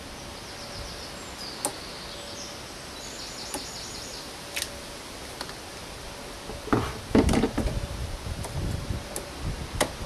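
Scattered clicks, then from about seven seconds in a run of louder knocks and rattles from hands and tools working among the plastic parts and hoses around a car's air filter box. Faint bird twittering over a steady hiss in the first half.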